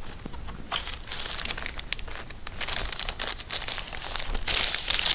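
Thin clear plastic bag crinkling and crackling as it is handled and pulled up out of a packing box.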